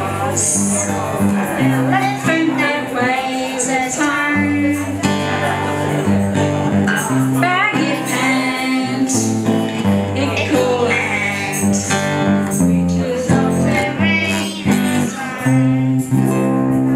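Acoustic guitar played with singing, a live song at the microphone.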